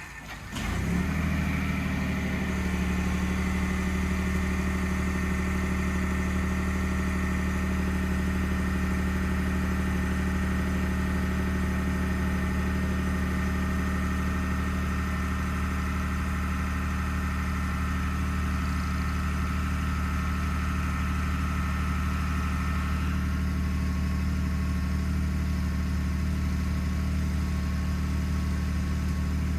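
2021 Ford F-150 PowerBoost's 3.5-litre hybrid V6 firing up on a remote cold start about a second in, then idling steadily. A higher whining tone rides over the idle and fades about three-quarters of the way through: the cavitating/grinding noise this truck makes on cold starts at −11 °C and below.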